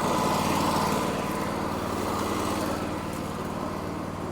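Wood-Mizer LT40 sawmill's 26.5 hp G28 engine running steadily, easing off slightly partway through.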